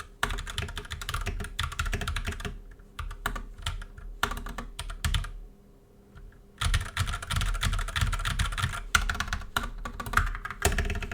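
Mechanical keyboard with FEKER Holy Panda tactile switches typed on fast and hard: a rapid run of keystrokes that thins out, a pause of about a second near the middle, then another rapid run that stops just before the end.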